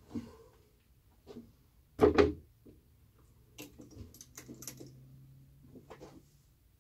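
Metallic clacks and knocks of a brass-framed lever-action rifle being handled after a shot, the loudest a sharp double clack about two seconds in, followed by lighter knocks and rattles as the rifle is laid on the shooting rest.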